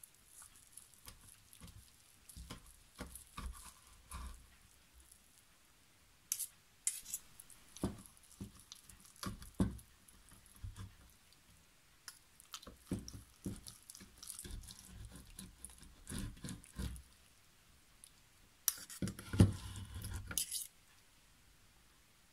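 Kitchen knife and fork cutting and pulling apart boiled meat on a wooden cutting board: irregular soft knocks and scrapes, with a louder, longer stretch of scraping about two seconds long near the end.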